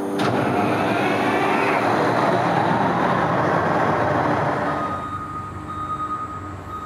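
Caterpillar 992K wheel loader's V12 diesel engine working under load, loud with a dense rushing noise over a steady low engine note. About five seconds in it eases off and a steady high whine comes in.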